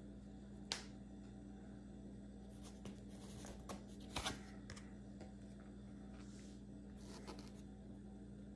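Trading cards being handled on a table: a sharp tap about a second in, then a few soft clicks and slides in the middle, over a steady low hum.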